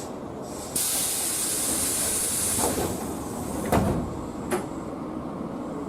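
Compressed air hissing loudly from a train's pneumatic system for about two seconds, over a low rumble of rail equipment. Two short knocks follow, a little later.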